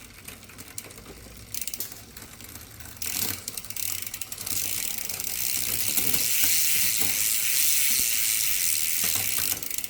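Bicycle drivetrain turned by hand: the chain running over the rear cassette and derailleur pulleys with ratcheting clicks, at first sparse and then a dense, louder whir from about three seconds in as the pedalling speeds up. The derailleur is shifting poorly, its cable not yet tensioned.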